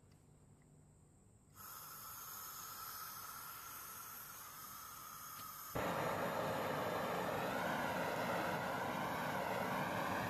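Twin-nozzle gas blowtorch: a steady hiss of gas starts about a second and a half in, then the torch is lit about six seconds in and the sound jumps suddenly to a much louder, steady flame noise that holds to the end.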